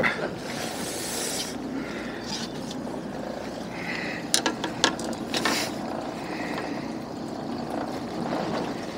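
Steady rushing background noise, with a cluster of sharp clicks and taps about four to five seconds in as the metal tenya jig is handled.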